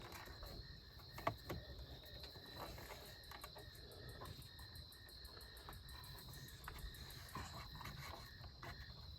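Faint, steady high-pitched insect chirring in the background, with a few light clicks, the sharpest about a second in, as the throttle cable is fitted to the carburetor linkage.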